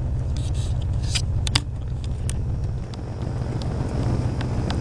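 Motor vehicle engine idling with a steady low rumble, with a few light clicks and a sharper knock about a second and a half in, like items being handled.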